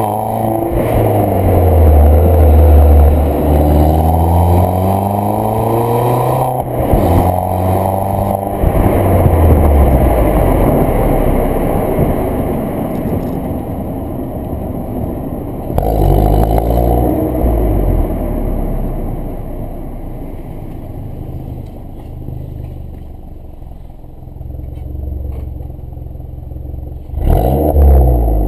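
Exhaust of an Audi A3 8P 1.4 TFSI turbocharged four-cylinder petrol engine, with the middle silencer replaced by a dummy pipe and the original rear silencer. The engine speed climbs and falls several times, with abrupt breaks in pitch, and runs steadier and lower in the latter half.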